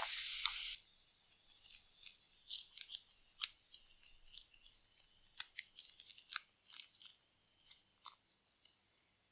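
Hand swishing in fizzing bath-bomb water, which cuts off abruptly under a second in. Then plastic wrap crinkling with scattered sharp crackles as small scissors snip it open.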